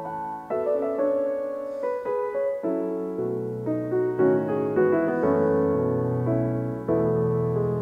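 Background piano music: a melody of held notes moving from one to the next.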